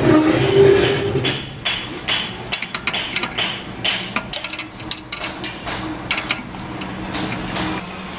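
Irregular metal clicks and knocks of a hex key working the head bolts of a Kalamazoo 2FS72M belt grinder, loosening them to adjust the head. A steady low hum runs underneath.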